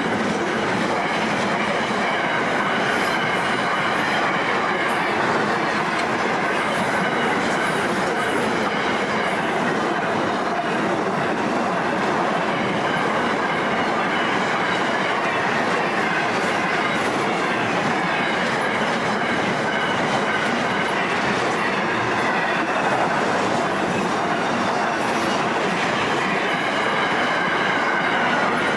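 Freight train wagons rolling steadily past, their wheels clattering over the rails with a faint wheel squeal.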